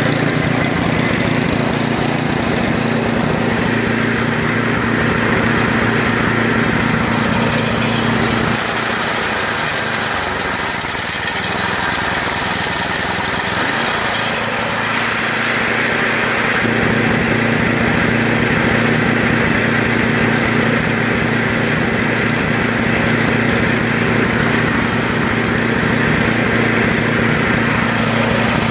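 Gas snowblower engine running steadily at a warmed-up idle. For several seconds in the middle its low steady note drops away, then it comes back.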